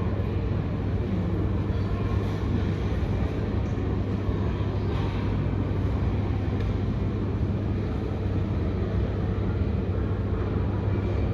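Steady low rumble of a vehicle in motion, with a strong low hum and an even hiss above it that stays the same throughout.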